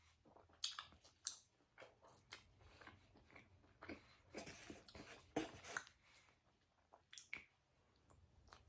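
A person chewing a mouthful of cheesesteak close to the microphone, with soft, irregular mouth smacks and clicks.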